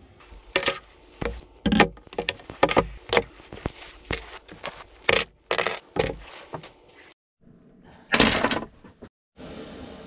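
A quick series of knocks, clicks and clunks, like things being handled and set down or latches and doors being worked, followed about eight seconds in by a short rush of noise.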